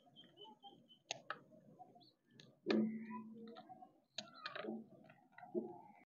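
Dried corn kernels being twisted off the cob by hand and dropping into a metal tray: irregular sharp clicks, the loudest about halfway through.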